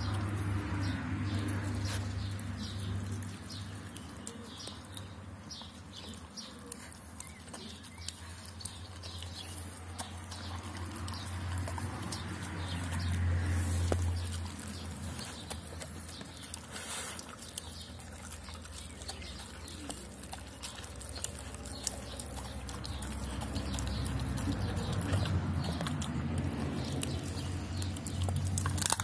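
Doberman pinscher eating a wet mix of rice and meat from a stainless steel bowl: steady chewing and gulping with many small clicks. A low hum underneath swells and fades.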